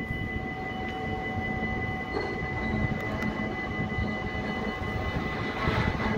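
GVB tram approaching on its track, a steady low rumble that grows louder near the end, with a steady high whine over it.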